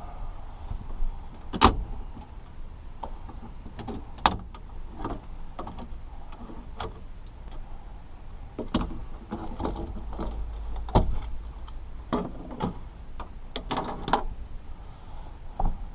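Irregular clicks, knocks and scraping as bent coat-hanger wire tools work at the spring-loaded latches of a Ford pickup's factory radio to release it from the dash.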